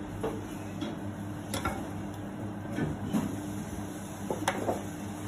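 Metal spoon clinking a few separate times against a glass jar and ceramic dishes, over a steady low hum of kitchen equipment.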